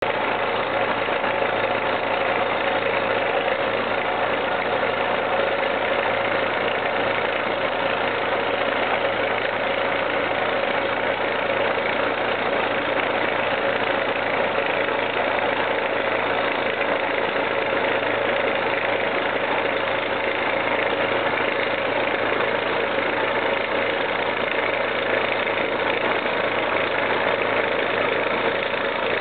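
K60 drilling rig with a JT200 rock drill head running a down-the-hole air hammer: a steady, unbroken mechanical din with a constant low hum.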